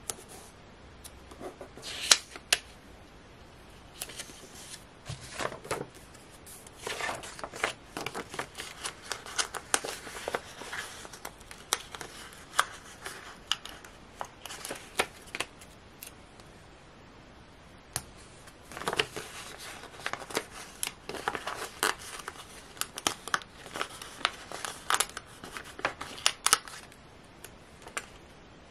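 Stickers peeled from their backing sheet and pressed onto planner pages: a run of irregular paper rustles, crinkles and small sharp clicks, with a short lull a little past the middle.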